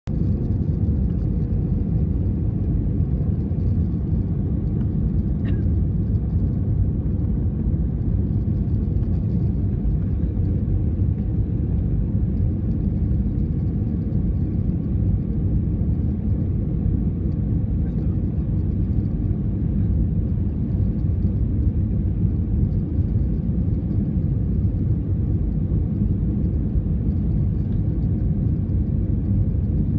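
Steady low rumble of an Airbus A320 airliner in flight on its approach to landing: engine and airflow noise.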